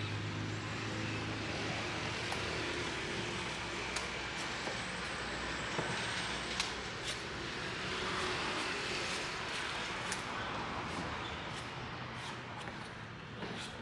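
Steady street traffic noise with vehicle engines running, broken by scattered sharp knocks and clicks.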